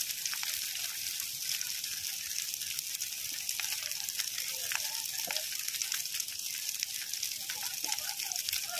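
Large brushwood bonfire burning, with a steady hiss and many small crackles and pops from the burning twigs.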